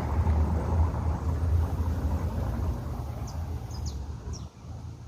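Wind gusting against the microphone outdoors as a storm approaches: a loud, uneven low rumble that eases off after about three seconds. A few short high chirps come through near the end.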